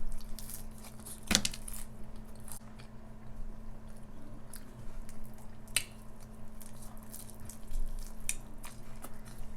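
Close-miked eating: biting and chewing food, with scattered sharp clicks of the mouth and teeth, the loudest a little over a second in and another near six seconds.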